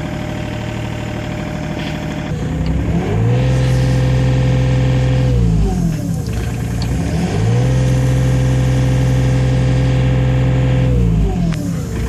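Komatsu PC35MR-2 mini excavator's diesel engine revved twice. It runs at idle at first, then from about two seconds in it climbs to high speed, holds, drops back, climbs again about seven seconds in, holds, and falls back near the end.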